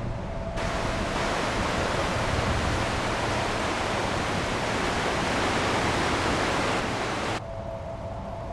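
Rushing water of an underground stream flowing over rocks: a steady, even hiss that starts sharply about half a second in and cuts off abruptly near the end.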